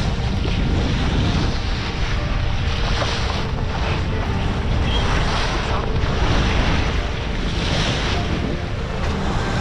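Wind buffeting the microphone over the rush of water along a sailing yacht's hull under way, the wash swelling in surges every second or two.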